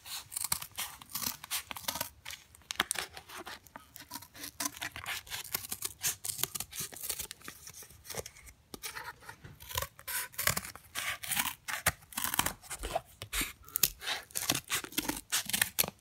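Scissors cutting through corrugated cardboard: a long run of repeated snips, with a brief pause about halfway.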